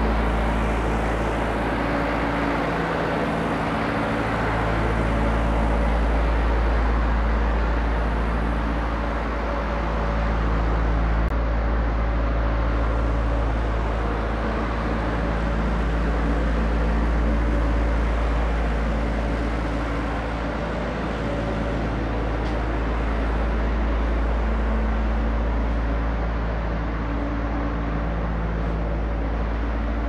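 Steady mechanical hum over a heavy low rumble, with a few held tones fading in and out.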